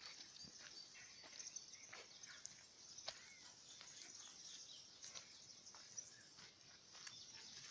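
Faint outdoor field ambience: scattered short ticks and rustles, with a few faint bird chirps.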